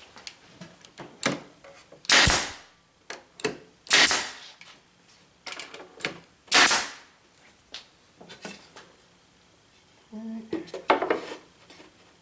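Porter-Cable pneumatic nail gun firing three times, about two seconds apart, each shot a sharp crack with a short hiss of air as it drives a nail through the wooden facing strip. Lighter knocks and clicks from handling the board and tool come between the shots and near the end.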